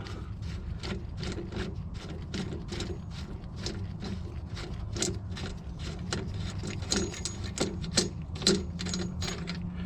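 Hand ratchet clicking in a steady run of ticks, about three a second, backing out an already-loosened sway bar end-link bolt.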